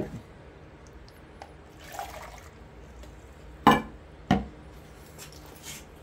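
Brewed coffee poured briefly from a stainless steel mug into a plastic measuring cup. Two sharp knocks follow as things are set down on the wooden bench, then a couple of lighter taps.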